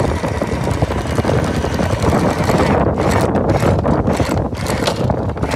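Heavy, gusting wind noise on the microphone at the bow of a boat running fast through choppy sea, with the rush of water along the hull underneath.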